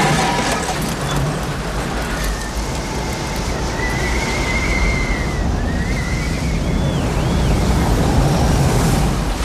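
Film tornado sound effect: a continuous heavy roar of wind and rumble. A thin high whine glides up and down in the middle and ends in a couple of short looping squeals.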